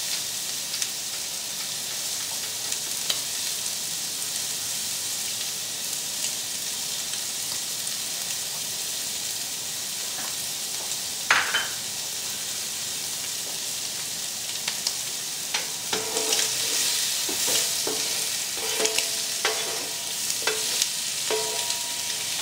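Shrimp sizzling steadily as they fry in oil in a skillet. From about 16 seconds in, a spatula scrapes and clicks against the pan as the shrimp are turned and pushed together.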